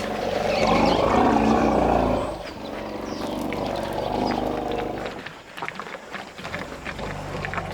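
Elephants rumbling: a loud low call for about the first two seconds, then a quieter, drawn-out rumble that fades about five seconds in, followed by soft scattered clicks and rustles.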